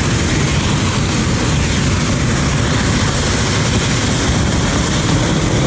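A hot-air balloon's propane burner firing: a loud, steady roar of burning gas that holds without a break.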